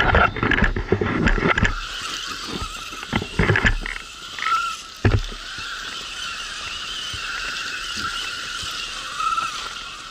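Electric motor and gearbox of a radio-controlled crawler car whining steadily as it climbs, its pitch wavering with the throttle. Irregular knocks and scrapes in the first few seconds and one sharp knock about five seconds in.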